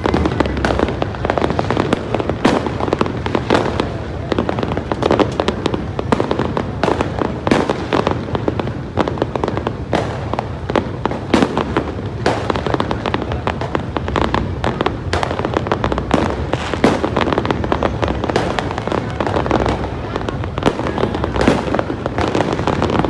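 Fireworks going off in a rapid, continuous barrage of sharp bangs and crackles, several a second and never letting up.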